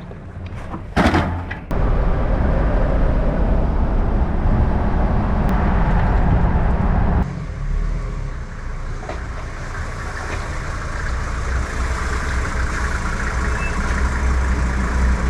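Mercedes G 250 GD Wolf's five-cylinder diesel engine running with a steady low rumble. A short loud clatter comes about a second in, just before the engine sound comes in strongly, and the sound changes abruptly about halfway through.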